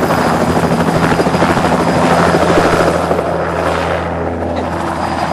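A loud, steady engine drone with a rapid, even pulsing beat over a low hum; the higher part of the sound thins out a little past the middle.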